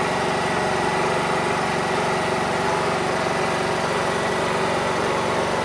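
Honda EU2200i inverter generator running at a steady, even speed.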